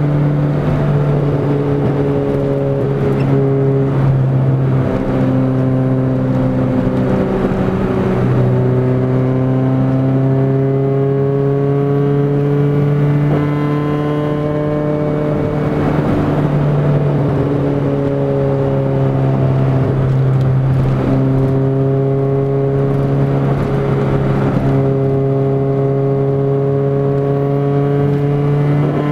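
Honda B18C1 four-cylinder engine with a 4-2-1 header and a 2-inch straight-pipe exhaust with no catalytic converter, droning steadily under way, heard from inside the car's cabin. The pitch rises and dips a little with small throttle changes.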